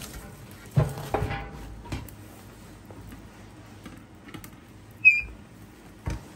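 A split log is shoved into a cast-iron wood stove's firebox, knocking against the firebox twice about a second in. About five seconds in, the stove's metal door shuts with a sharp clank that rings briefly, and the latch handle clunks just after.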